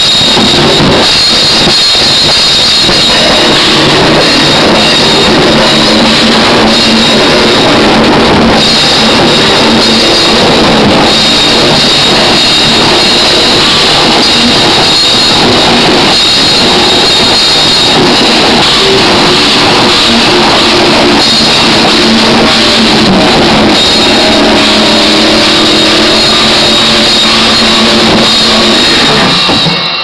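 Metalcore band of drum kit, electric guitars and bass playing an instrumental with no vocals, recorded loud and distorted on a camera microphone. The music stops suddenly near the end.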